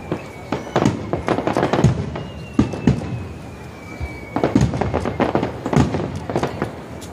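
Star mine fireworks barrage: aerial shells bursting in quick succession, a rapid run of sharp bangs that thins out briefly just past the middle and then comes thick again. A thin falling whistle runs under the bursts twice.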